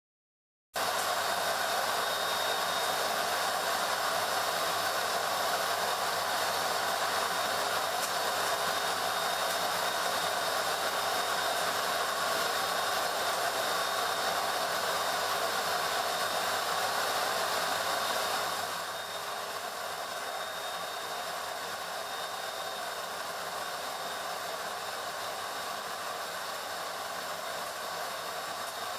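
Pet grooming dryer blowing air through its hose and nozzle onto a wet cat: a steady rush of air with a thin high whine. It cuts in suddenly about a second in and drops somewhat quieter a little past halfway.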